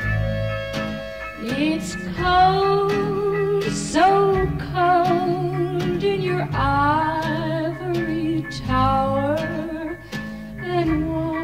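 1950s pop ballad record: a female singer holds long wavering notes, sliding up into each phrase, over an orchestra with guitar.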